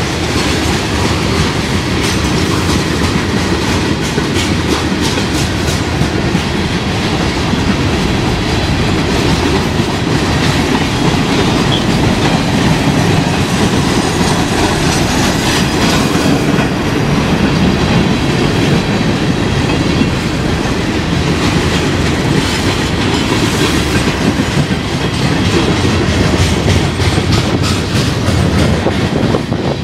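Freight train of tank cars and covered hopper cars rolling past, its steel wheels clacking over the rail joints in a steady stream of clicks above a continuous rumble.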